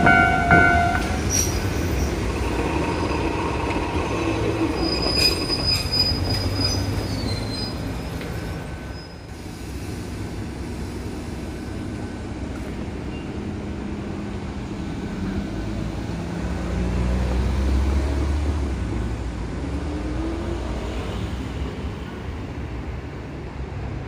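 Kotoden 1100-series two-car electric train pulling away and running off down the line, with rail clicks and a brief high wheel squeal about five seconds in. After about eight seconds its running noise is fainter, a low rumble.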